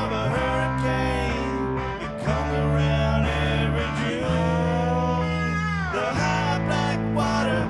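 Live rock band playing: electric guitar, electric bass and drum kit, with held bass notes that change every couple of seconds and gliding guitar lines above them.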